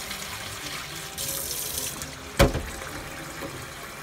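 Kitchen tap running into a stainless steel bowl of salmon roe in a sink, rinsing away the membranes and cloudy water as it overflows. The water rushes louder for a moment just after a second in, and a single sharp knock comes about two and a half seconds in.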